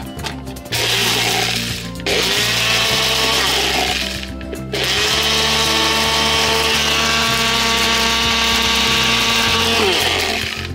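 Personal bullet-style blender grinding soaked oats in water, run in bursts. It pauses briefly about two and four seconds in, then makes a long run that winds down near the end, its pitch falling as the motor stops.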